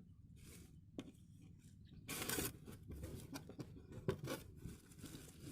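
Fishing reel packaging being opened by hand: faint scraping and rustling with a few small clicks, the loudest a brief scrape about two seconds in.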